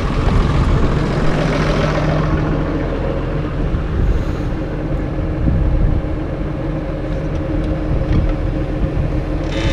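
Case Puma tractor's diesel engine running steadily, with a brief higher whine joining near the end.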